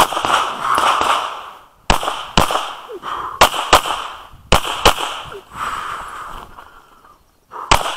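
Handgun shots fired in quick pairs (double taps), four pairs with pauses of about one to three seconds between them, each crack trailing off over about a second.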